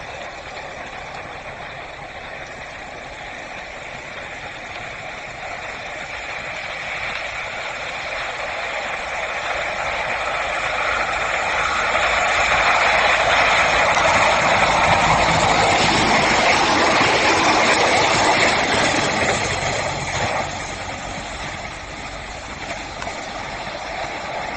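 A train passing. The rumble of the wheels on the rails builds to a loud peak in the middle and drops off sharply about twenty seconds in.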